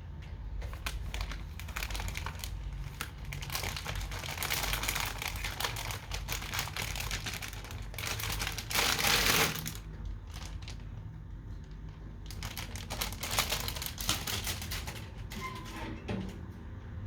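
Crinkling and rustling of packaging being handled, with scattered clicks and knocks. A louder rush of noise lasting about a second comes about nine seconds in.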